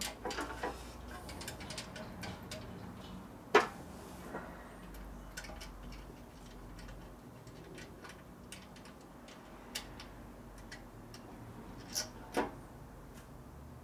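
Small irregular clicks and clinks of hands and parts being worked on a motorcycle's fuel tank and fuel line, with a sharper knock about three and a half seconds in and another near the end.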